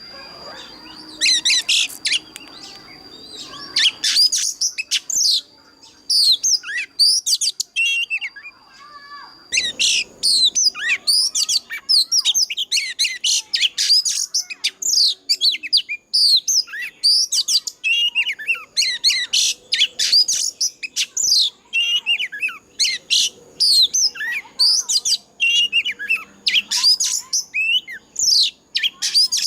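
Oriental magpie-robin singing a fast, varied song of sharp whistled and warbled notes. It comes in separate phrases at first and runs almost unbroken from about ten seconds in.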